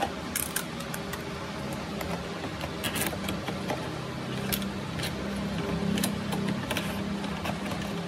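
Plastic laptop palmrest being set onto the chassis and pressed down, its edges and clips snapping into place with scattered clicks and taps, over a steady low hum.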